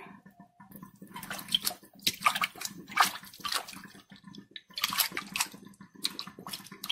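A hand swishing and rubbing pieces of raw beef steak in a bowl of water and vinegar to clean them, with irregular splashing and sloshing.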